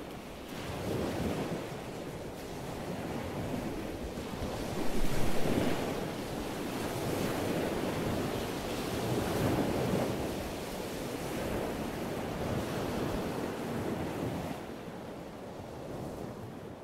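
Ocean surf: waves washing in and drawing back, swelling and easing every few seconds, with a louder surge about five seconds in.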